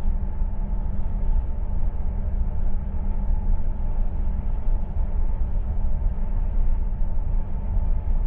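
Steady low rumble inside a Twindexx Vario double-deck Intercity coach as the train runs along the track.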